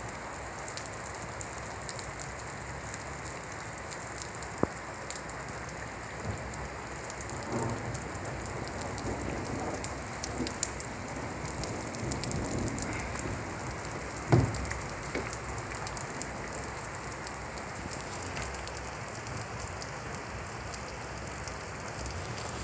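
Steady rain falling, with many scattered sharp taps of drops; a few stand out, the loudest about two-thirds of the way through.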